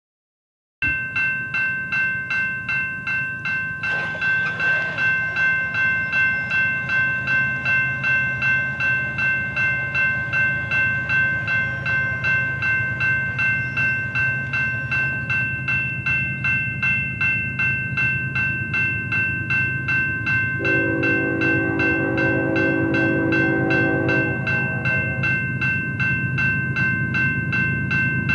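Grade-crossing warning bell ringing steadily, over a low rumble. About twenty seconds in, a Union Pacific C45ACCTE diesel locomotive's air horn sounds for about four seconds.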